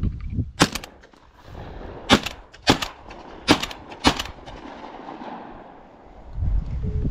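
A shotgun fired five times in about three and a half seconds: one shot, then four in quick succession, shooting pigeons on the wing.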